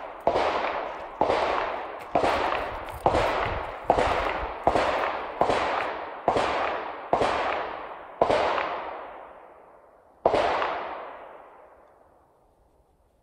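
Machine-gun salvos from a police shooting range, heard at a distance: about ten sharp reports roughly a second apart, each rolling away in a long echo. A last salvo comes after a two-second pause, and its echo fades out near the end.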